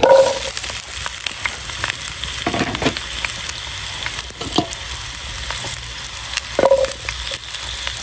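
Chopped vegetables tipped into a hot, oiled cast-iron Dutch oven with a ringing clatter, then sizzling steadily in the oil with scattered small pops. A second ringing clink from the pot about two-thirds of the way through.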